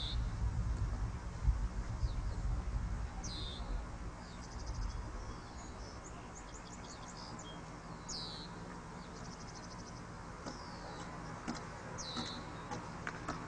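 Birds calling: a high, down-slurred call repeated about every four seconds, with short rapid buzzy trills between. A low rumble runs under the first few seconds, then fades.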